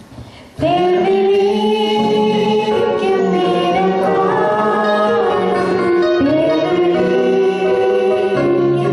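Singers performing a Christian song into microphones, holding long notes. The singing comes in suddenly about half a second in, after a brief lull.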